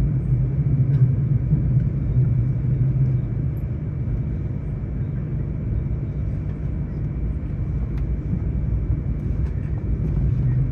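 Steady low rumble of a high-speed train running, heard from inside the passenger car, with a faint steady high whine above it.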